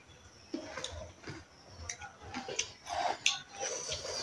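Eating sounds picked up close: irregular soft mouth clicks and smacks of chewing as rice and curry are eaten with the fingers.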